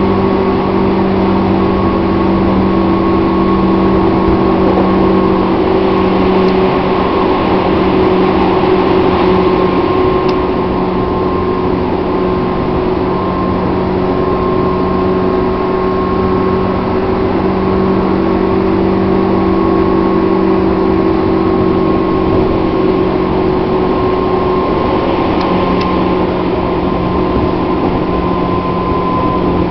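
JR 205 series electric train heard from inside while running at speed: a steady hum with several held tones from the traction motors and gearing over rumbling wheel-on-rail noise. The highest tone dips slightly near the end.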